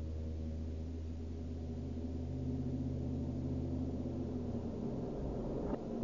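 Horror sound effect: a low, sustained, gong-like metallic drone made of several steady tones, with a short hit near the end.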